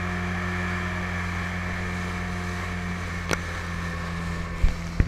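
Small speedboat's engine running steadily at speed, with water rushing and spraying along the hull. A sharp tick about three seconds in, and a couple of heavy thumps near the end.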